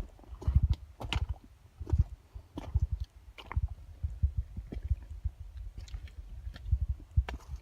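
A hiker's footsteps on a trail: irregular low thuds with clicks and rustles close to the microphone.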